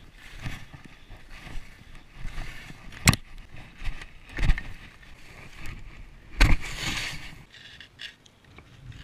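Skis sliding and scraping over snow, a hissing rush that swells and fades with the turns, broken by three loud sharp hits about three, four and a half and six and a half seconds in.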